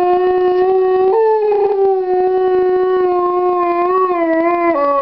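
A large dog howling: one long, steady howl that steps up slightly in pitch about a second in and begins to slide down near the end.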